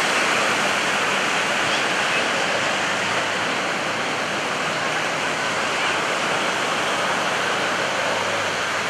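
Steady rushing outdoor noise, like wind and surf, at an even level throughout, with a faint low hum beneath it.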